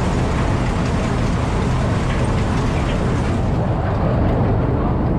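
Bizon Rekord combine harvester running steadily while stationary, with its threshing and cleaning mechanisms engaged. The sieve box runs smoothly and does not knock on its newly replaced hangers.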